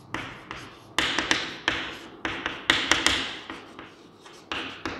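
Chalk writing on a chalkboard: irregular sharp taps of the chalk against the board mixed with short scratchy strokes.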